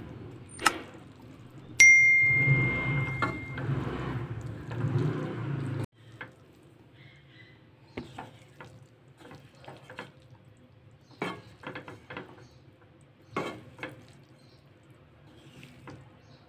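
Spatula stirring spiral pasta in a non-stick kadai, with soft scrapes and taps against the pan. Under a second in there is a click, and about two seconds in a bell-like ding rings out and fades: the subscribe-button sound effect. About six seconds in the louder background drops away abruptly, leaving only scattered faint scrapes.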